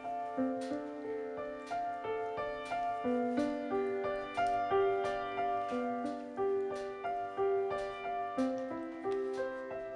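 Soft background piano music, a slow melody of single held notes over gentle chords.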